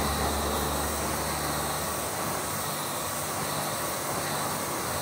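Pressure washer jet rinsing an alloy wheel and tyre: a steady spray hiss over the washer's running motor.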